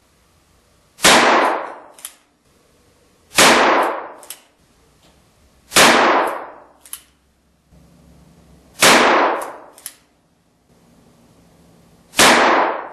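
Five shots from a .32 H&R Magnum revolver firing cast-bullet handloads, spaced about two and a half to three seconds apart, each ringing briefly in the wooden shooting shed.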